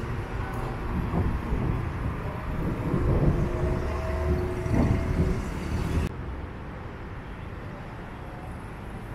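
Road traffic close by: vehicles and motorbike engines passing. About six seconds in it cuts off abruptly to a quieter, steady traffic hum.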